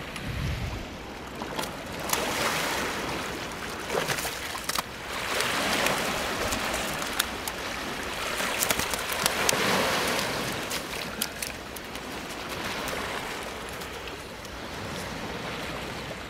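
Surf breaking and washing up the beach, swelling and easing in slow waves, with scattered light clicks and knocks over it.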